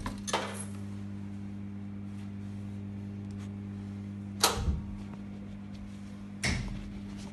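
Primus RS16 front-loading washing machine humming steadily, with three dull thuds: one just after the start, one about four and a half seconds in and one near the end.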